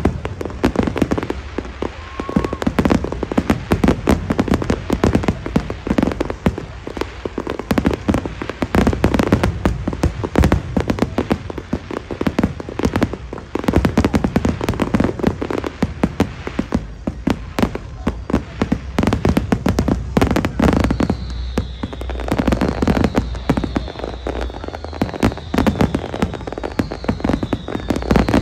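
Fireworks display: a dense, continuous barrage of aerial shell bursts and crackle. In the last several seconds a short, high, falling whistle repeats about once a second.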